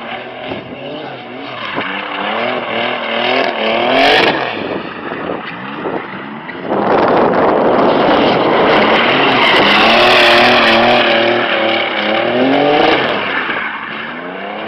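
Nissan 350Z's V6 engine revving up and down through a drift, with tyres squealing as the car slides sideways. About seven seconds in the engine and tyre noise grow much louder as the car slides close past, staying loud for about six seconds before easing off.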